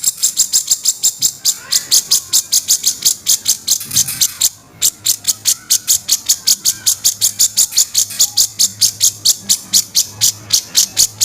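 Cucak jenggot (grey-cheeked bulbul) giving its harsh 'kasaran' call: a fast, even run of short high notes, about six a second, with a brief break about four and a half seconds in.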